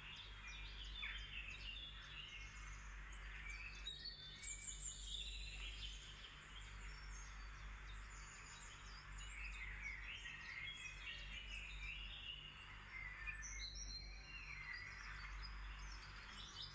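Small birds chirping and twittering in many short calls, over a steady low hum.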